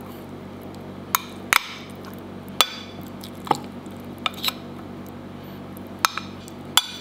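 Metal spoon clinking and scraping against a dish while picking steamed fish flesh off the skin: about ten sharp, irregular clinks over a steady low background hum.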